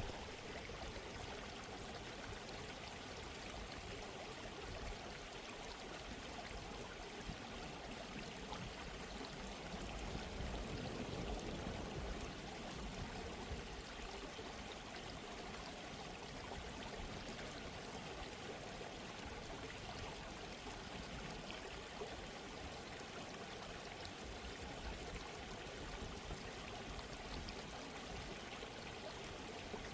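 Steady sound of running water, a gently flowing stream, at low level, swelling a little about ten seconds in.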